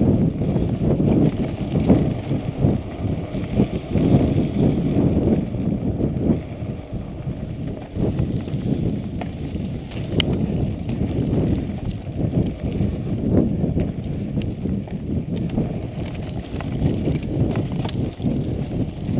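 Mountain bike riding over a bumpy dirt trail: a continuous low rumble of the tyres with irregular rattling over the bumps, and one sharp click about ten seconds in.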